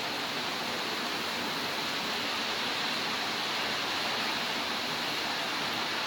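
Steady, even hiss of rain falling during a thunderstorm.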